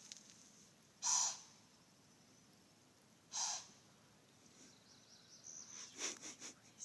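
Deer blowing alarm snorts, two sharp, loud nasal blasts a little over two seconds apart, the first about a second in. Near the end comes a run of softer, quicker short sounds. The blowing is a deer's alarm signal at a predator, here a cat.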